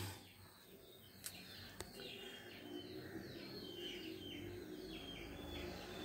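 Faint bird chirping: a run of short, repeated high chirps, with two light clicks a little over a second in.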